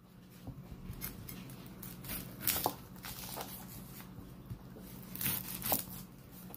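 A cleaver chopping an onion on a plastic cutting board: irregular knocks of the blade on the board and crisp cuts through the onion and its dry skin, loudest about halfway through and near the end. A low steady hum runs underneath.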